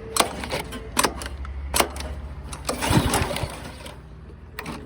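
Husqvarna tiller's small engine running steadily at low speed, with several sharp knocks and clanks over it.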